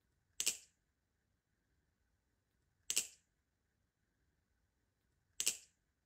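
Balisong trainer (Squid Industries Krake Raken V2.5) clacking three times, about two and a half seconds apart, as the handles snap against the blade with each loop of a flipping trick. Each clack is a sharp, quick double hit.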